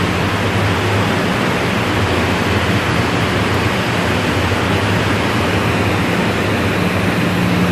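Steady, loud mechanical noise of slaughterhouse machinery, with a constant low hum running underneath.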